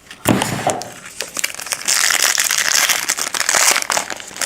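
Trading-card pack wrapper being torn open and crinkled by hand, a dense rustle that grows louder from about halfway through.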